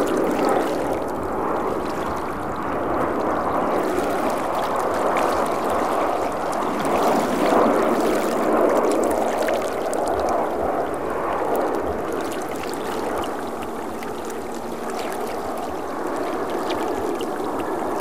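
Jet engines of a Boeing 737-800 heard as a steady rushing noise, swelling a little about halfway through, with a faint low hum in the last few seconds.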